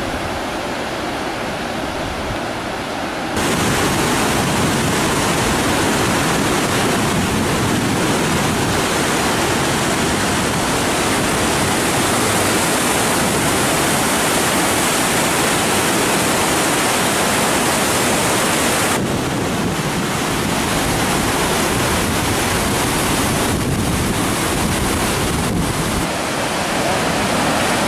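Swollen, fast-flowing muddy river rushing over rapids, a loud, steady noise of water. It gets louder about three seconds in.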